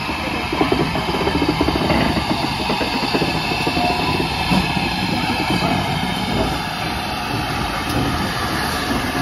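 GWR Manor class 4-6-0 steam locomotive No. 7822 Foxcote Manor close by, with a steady hiss of steam over an uneven low rumble.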